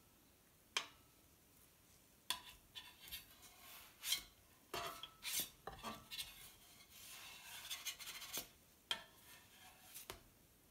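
A spatula tapping and scraping on a plate as it slides under a pancake: a scatter of light clicks and short scrapes.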